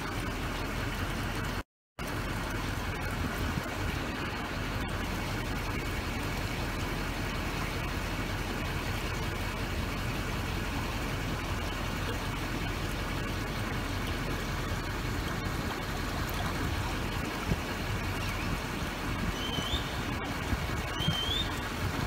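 A vehicle's engine running steadily, heard from inside the cab through an open window as a low rumble, with a wash of moving water under it. The sound drops out for a moment about two seconds in, and a few short high chirps come near the end.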